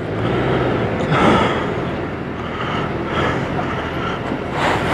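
Motorcycle engines idling, with one motorcycle rolling up alongside. The steady engine hum swells about a second in and again near the end.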